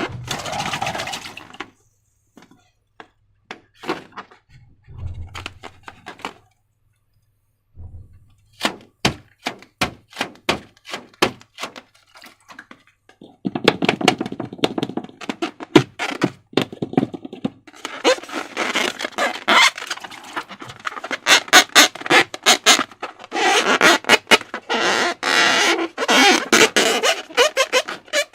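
Slime being squished and worked by hand, making sticky clicks and crackles. They come sparsely at first, stop briefly, then grow dense and loud from about halfway through.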